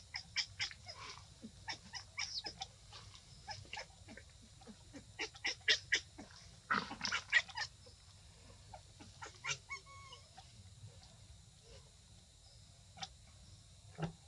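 Newborn macaque crying in clusters of short, high-pitched squeals and squawks while it squirms on its back in leaves. The calls come thickest in the first half and thin out to a few squeaks near the end.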